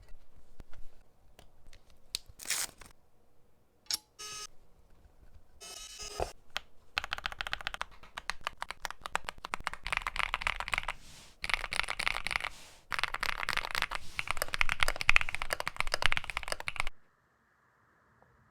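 Custom mechanical keyboard: a few scattered clicks and short rustling handling sounds, then fast continuous typing on the keys from about seven seconds in, which stops suddenly near the end.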